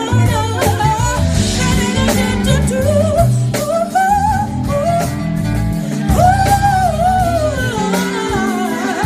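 A live band with a drum kit playing while a woman sings into a microphone, her voice holding long notes that bend up and down over the music.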